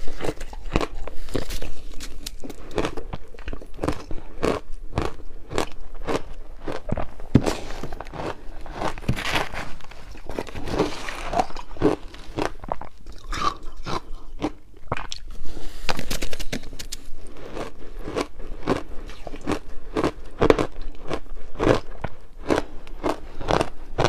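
Person biting and chewing frozen ice, a steady run of crisp crunches, about two a second.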